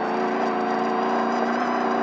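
Off-road race truck's engine held at steady revs, one even pitch throughout, over road and wind noise.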